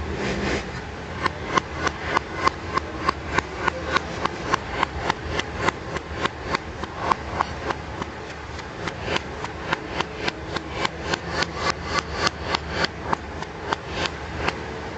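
Large butcher's knife chopping chicken into mince on a wooden log block: a steady run of sharp chopping strikes, about three a second, with a short pause near the middle.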